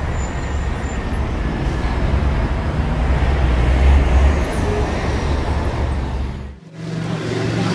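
Loud, steady rumble and hiss of road traffic, with most of its weight deep in the bass. It cuts out briefly about six and a half seconds in, then gives way to a quieter street ambience with a steady low hum.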